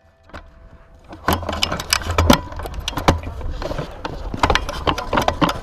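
A run of irregular sharp clicks and knocks over a low rumble, starting about a second and a half in.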